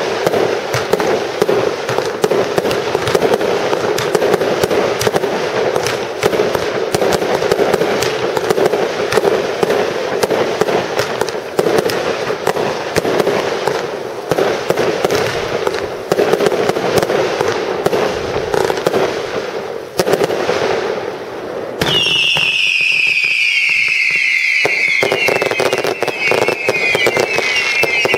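Aerial fireworks display going off: a dense, continuous barrage of bangs and crackling from bursting shells. About three quarters of the way through, several overlapping high whistles that fall in pitch join the pops and crackle.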